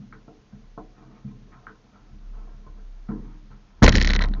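Handling noises on a model aircraft's fuselage and canopy: scattered light clicks and knocks, then a loud scraping rustle near the end. The engine is not running.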